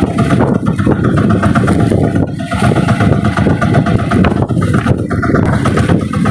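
Outrigger fishing boat's engine running steadily at low speed.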